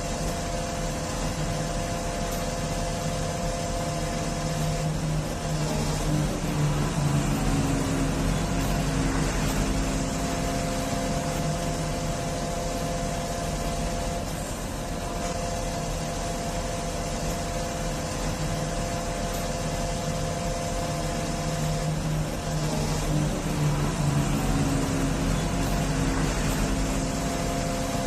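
XCMG QY25K5A truck crane's diesel engine and hydraulics running steadily. Twice, from about five seconds in and again from about twenty-two seconds in, the tone drops lower and the sound grows a little louder for several seconds, then settles back.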